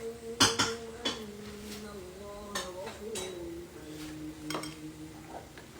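A metal utensil clinking against cookware, several sharp clinks with the loudest about half a second in.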